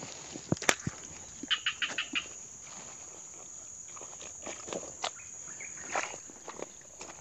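A steady high drone of insects, with close rustling and knocks as the camera rubs against clothing and feet move through wet undergrowth. A sharp click comes just under a second in, and a quick run of rattling clicks follows about a second and a half in.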